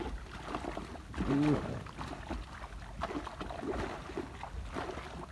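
Water splashing and dripping through the netting of a mesh fish trap as it is lifted and handled, with scattered knocks and low rumbling handling noise. A short voice sound comes about a second in.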